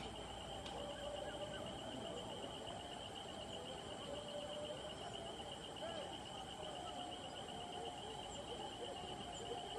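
Steady high-pitched insect trill with a fine pulse, running throughout, with faint short chirping calls underneath.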